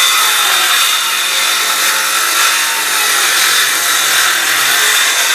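Power saw running steadily with a whine as it cuts through the wall.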